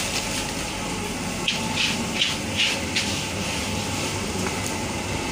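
Steady noisy background hum of a convenience store beside its drinks fridges. About a second and a half in come four short hissing rustles.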